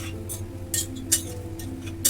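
A metal spoon clinking against a metal cooking pot, about two or three sharp clinks a second, as mutton is stirred while it fries in ghee. Soft background music plays underneath.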